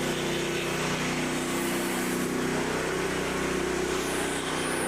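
Small engine of a Frontier OS27 portable sawmill running steadily at a constant speed.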